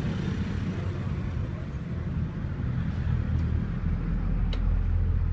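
Low, steady rumble of a motor vehicle engine in street traffic, growing louder near the end, with a faint click about four and a half seconds in.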